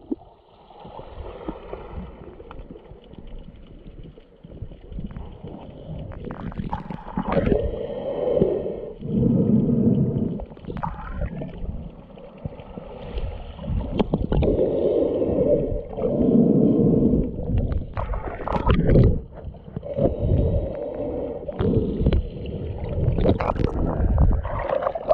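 Muffled underwater sound from a camera held just below the surface: water gurgling and sloshing in low swells every couple of seconds, with scattered sharp knocks from the camera being handled.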